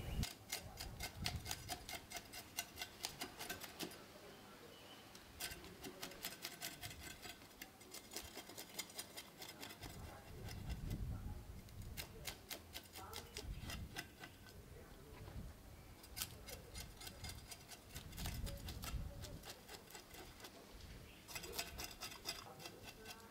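Knife blade scraping scales off small red fish on a wooden cutting board: rapid, scratchy clicks in runs of a few seconds with short pauses between strokes.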